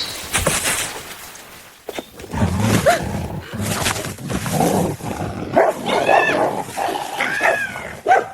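A dog barking repeatedly, with two high arching cries about six and seven and a half seconds in.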